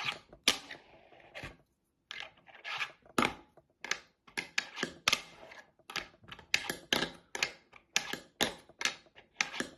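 Flatface G16 fingerboard being popped and landed in flip tricks: a quick run of sharp clicks and clacks of the tail, deck and wheels hitting the surface, a couple each second, with a short pause about two seconds in.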